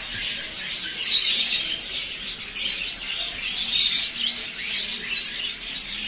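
Many small cage birds chirping together in a dense, continuous twittering.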